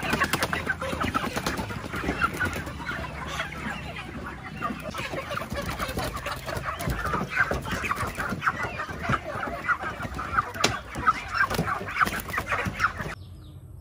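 A crowded flock of live broiler chickens clucking and squawking without pause as they are caught and handled, with wings flapping and a few sharp knocks. The sound cuts off near the end.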